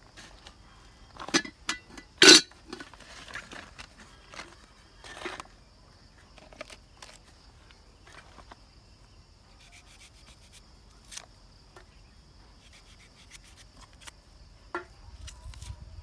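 A small knife scraping and peeling the dry skin off an onion, with soft rustles and scattered clicks, after a sharp knock about two seconds in. A steady high insect buzz sounds underneath.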